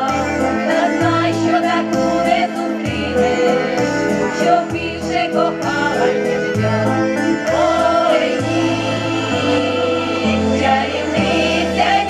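Ukrainian women's folk choir singing a song in harmony into microphones, over an instrumental accompaniment with a steady, regularly stepping bass line.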